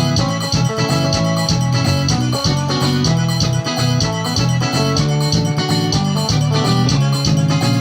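Instrumental music: electronic keyboard or organ playing sustained chords over a steady drum beat.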